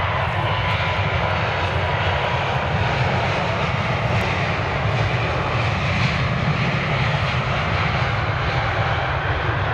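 Airbus A350's Rolls-Royce Trent XWB turbofans at take-off thrust during the take-off roll: a steady, loud jet roar with a deep rumble underneath.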